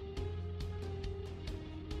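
Background music with a steady beat over a sustained bass line.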